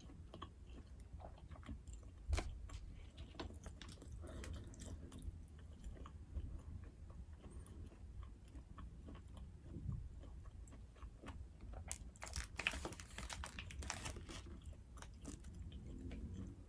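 A person chewing and biting food close to the microphone, with wet clicks throughout and a denser, crunchier stretch of bites a little past the middle.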